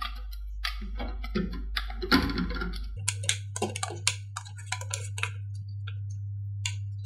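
A hand masher knocking and scraping against the bottom and sides of a pressure cooker pot while mashing soft cooked rice porridge: a quick, irregular run of clacks, over a steady low hum.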